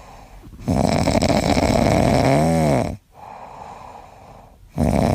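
Loud, rasping snoring: two long snores about two seconds each with quieter pauses between, the first with a short whistling rise and fall in pitch partway through.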